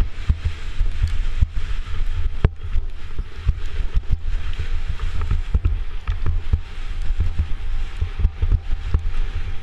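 Mountain bike descending a packed-dirt trail, heard from a camera on the rider's helmet: wind buffeting the microphone and the tyres rolling over dirt, with frequent sharp knocks and rattles as the bike hits bumps.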